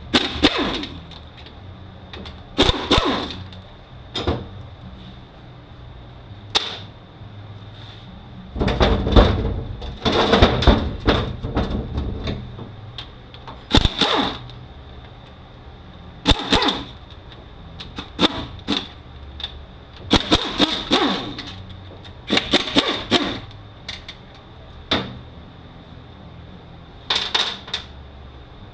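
Scattered metallic clanks and knocks of hand tools and steel transmission parts being handled during teardown of a Mazda six-speed manual gearbox. About nine to twelve seconds in there is a longer run of rattling clatter.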